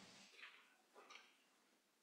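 Near silence: room tone, with two faint, brief noises in the first second.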